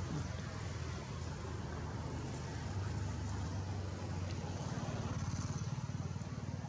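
A steady low rumble, like a vehicle engine running nearby.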